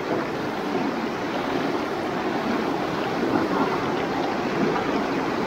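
Steady rushing of the Tone River's main-stream current flowing past.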